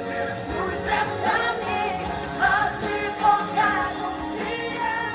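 Music: a pop song with a singing voice over steady accompaniment.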